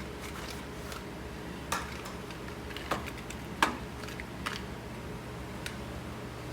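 Handful of light, sharp clicks and taps as new spark plugs and their packaging are handled, over a steady low hum.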